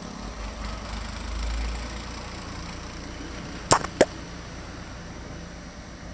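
Two sharp knocks about a third of a second apart, from hand tools at work on the cylinder-head bolts of a motorcycle engine, over a low background rumble.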